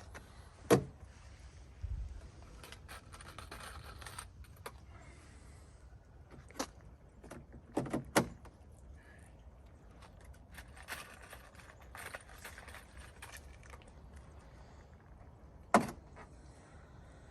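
Small metal parts and hand tools being handled, jingling and rattling, with five sharp clicks; the second and third clicks come close together about eight seconds in.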